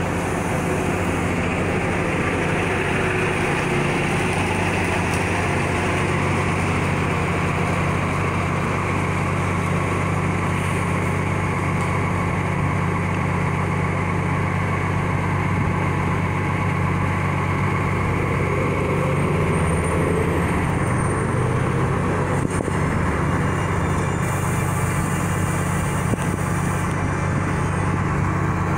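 Diesel engine of a New Flyer transit bus idling steadily close by, a continuous low hum.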